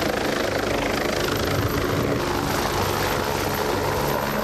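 Emergency medical helicopter hovering low as it comes in to land on a hospital helipad, its rotor and turbine engines running steadily. In the first two seconds there is a slowly falling whine.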